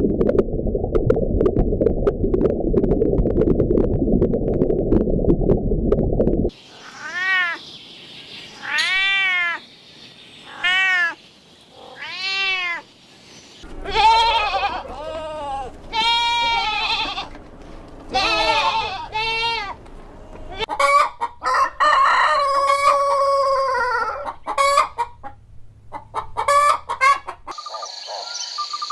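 Farm animals calling. A low, rough sound fills the first six seconds. It gives way to a string of rising-and-falling calls about a second apart, then a denser run of calls near the end.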